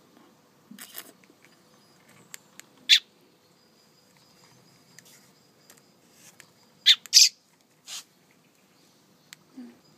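Baby bird chirping: about five short, sharp chirps spread out, with a quick pair about seven seconds in.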